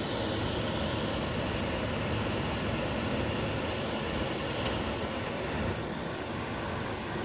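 Chevrolet Tahoe police SUV idling: a steady, even running noise with no siren, and a single small click about halfway through.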